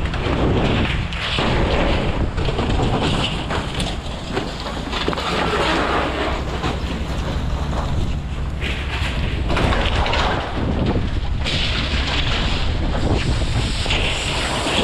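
Wind buffeting the microphone, a steady low rumble with shifting rushing noise over it.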